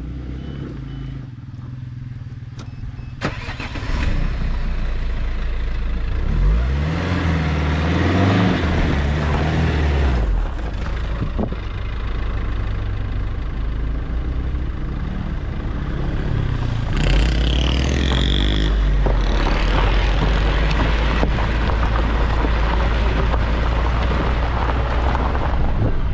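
Suzuki Vitara diesel SUV engine running, quieter for the first few seconds, then louder as the car drives off along a gravel dirt track. The revs rise and fall twice, with tyre and wind noise on the outside-mounted microphone.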